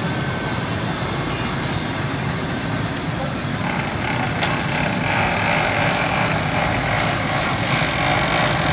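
Steady street traffic: car, truck and motorbike engines running and passing, a little louder from about halfway through.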